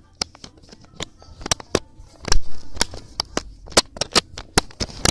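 Irregular sharp clicks and snaps of a phone case being pressed onto a phone and handled, with one louder knock about two and a half seconds in.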